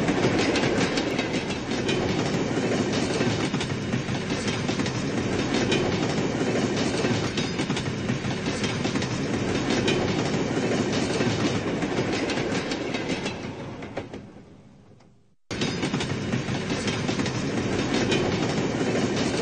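Several toy trains running on plastic track: a dense, steady clatter of their wheels rolling over the rails and joints. The sound fades away about two-thirds of the way through, then cuts back in suddenly at full level.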